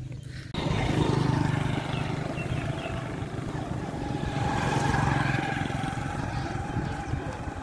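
Motorcycle engine running steadily while riding, heard from on board with rushing wind noise; it cuts in abruptly about half a second in.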